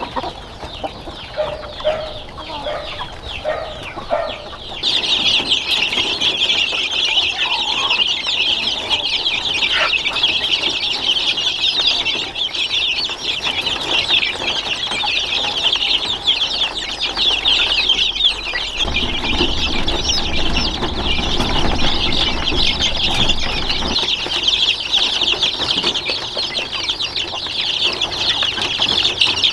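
Chickens clucking. About five seconds in, a dense, steady high-pitched chirping starts and carries on, with a low rumble for a few seconds in the middle.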